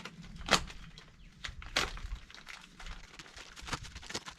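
Scattered small clicks and rattles, with two sharp knocks, one about half a second in and another a little over a second later.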